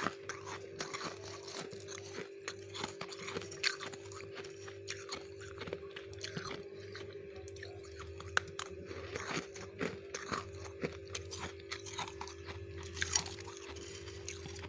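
Freezer frost being scraped up with a metal spoon and eaten: many small crisp crunches, with a few louder ones, over a steady low hum.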